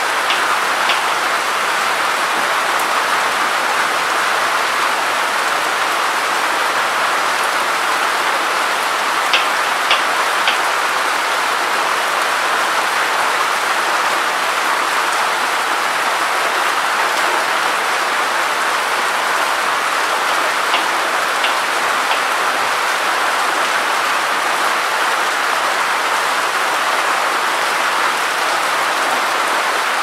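Steady rain falling on wet concrete and ground, an even hiss with a few sharp ticks of single drops now and then.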